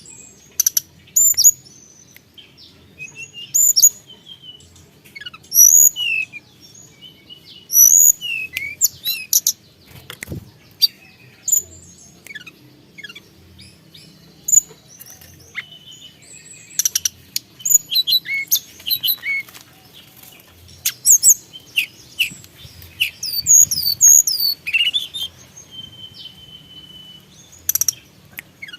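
Tledekan gunung songbird singing actively: rapid phrases of short, sharp high whistles and quick downward-sweeping notes every second or two, with one held whistle a little before the end.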